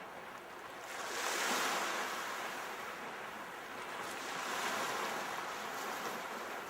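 Sea waves breaking and washing up the shore: a loud surge of surf about a second in, then a softer second wash around the middle.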